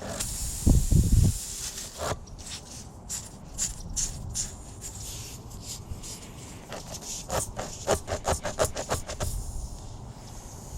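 A hand tool scraping and rubbing against a punctured car tire during a plug repair, with a heavy thump about a second in and a quick run of short rasping strokes near the end.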